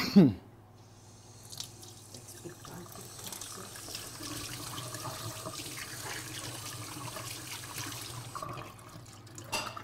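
A short loud sound with a falling pitch at the very start, then a kitchen tap running into the sink with uneven splashing as sticky hands are rinsed under it, stopping shortly before the end.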